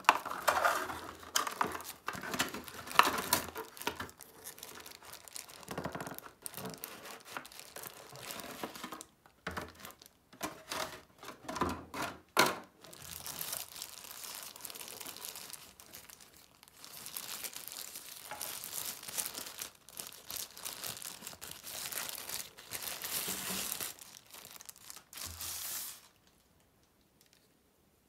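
Thin packaging wrap rustling and being pulled off a coiled USB cable, in irregular handling bursts with a few sharp clicks. The sound stops about two seconds before the end.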